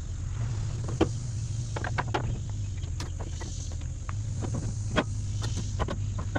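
Scattered clicks and knocks of ratchet-strap hooks and buckles as the straps are unhooked and dropped into a steel truck bed, over a steady low hum.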